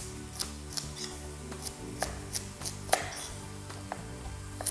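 Chef's knife chopping carrots on a wooden chopping board: the blade knocks the board in a steady run of about three strokes a second, one stroke near the middle louder than the rest.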